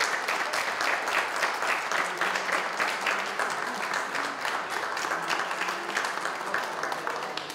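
Audience applauding: a steady patter of many hands clapping, easing off a little near the end.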